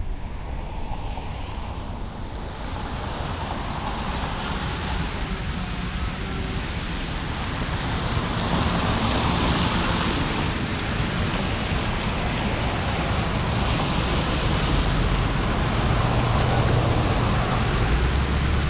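Wind buffeting a car-roof-mounted camera's microphone over a steady hiss of tyres rolling through water on wet pavement. The noise grows gradually louder.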